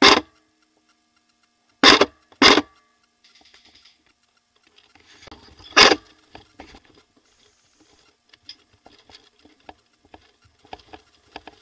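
Airsoft electric gun firing four short bursts, near the start, twice around two seconds in and once about six seconds in, with faint clicking and rustling between them.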